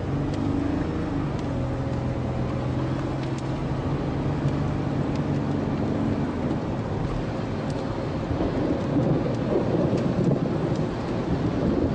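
Heavy rain pelting the car, heard from inside the cabin with the windows up, over the vehicle's engine running. The rain noise swells into a louder rumble in the last few seconds.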